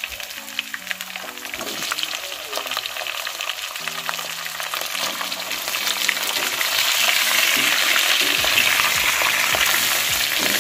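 Raw chicken pieces frying in hot oil in a nonstick kadhai, the sizzle growing louder as more pieces go in, with a spatula scraping and clicking against the pan.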